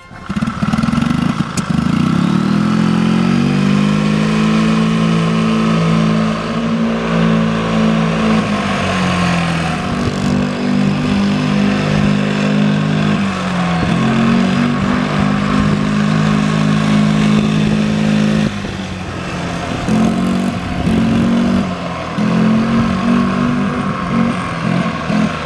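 An engine running and revving, its pitch rising and falling several times, with a drop in revs and level about three-quarters of the way through.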